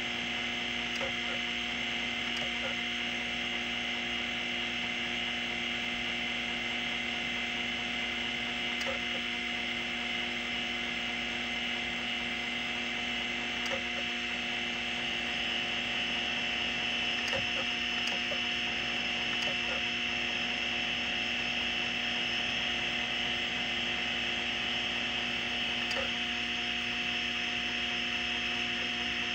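Seagate ST-212 MFM hard drive running with its cover off, the spindle giving a steady whine and hum while the stepper-driven head actuator makes a few scattered clicks as it seeks. It is retrying failed reads on its damaged platter, stepping back to track 0 before each retry.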